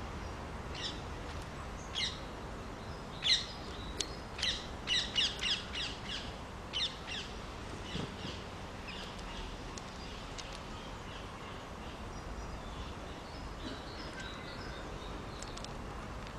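Small garden birds calling: a quick series of sharp chirps, loudest between about two and seven seconds in, with fainter ones near the end, over steady low background noise.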